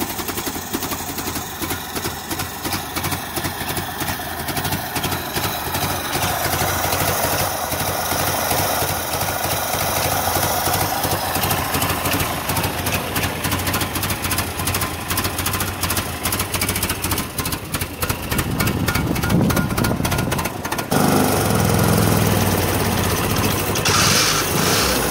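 Willys Jeep's four-cylinder engine running at idle, with an even, rapid firing pulse. About 21 seconds in the sound changes abruptly to a steadier, deeper engine tone.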